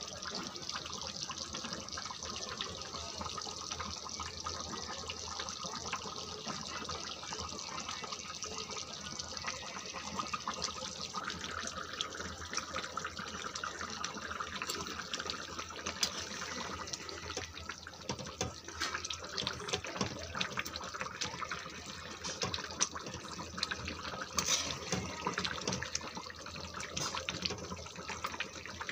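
Chicken and potato curry simmering in a pan, a steady hiss of small popping bubbles, with scattered louder clicks in the second half as a metal spatula stirs it near the end.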